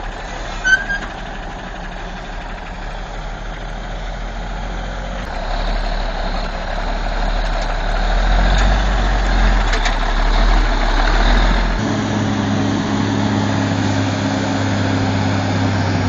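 Heavy diesel truck engine working hard as a loaded timber truck climbs a steep slope; the rumble grows louder partway through. About twelve seconds in it changes abruptly to a steadier, even engine drone.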